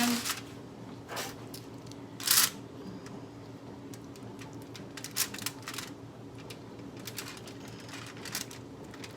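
Light, scattered handling noises from working pesto onto and under the skin of a raw whole chicken with a brush and fingers: soft clicks and rustles, one louder brushing noise about two seconds in, over a low steady hum.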